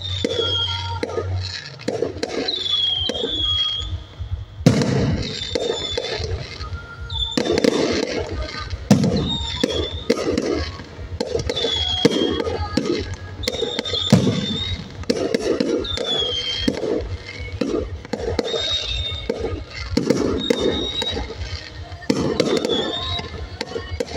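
Aerial fireworks display: shells bursting in quick succession, a steady run of bangs and crackles with short falling whistles.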